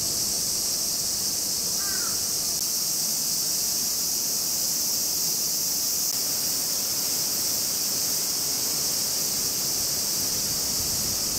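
Cicadas buzzing in chorus, a steady high sizzling hiss that does not let up. A faint short chirp comes about two seconds in.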